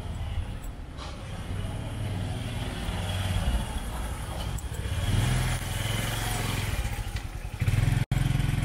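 A motor vehicle's engine running close by over general street noise, with a steady low hum that swells a few times. The sound drops out for an instant near the end.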